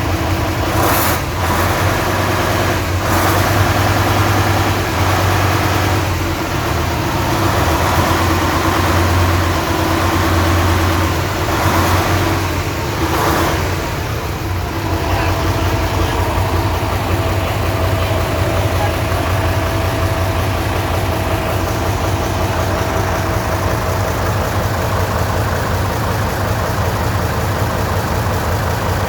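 Nissan 10-cylinder diesel engine idling steadily, with a few short knocks about a second, three seconds and twelve seconds in.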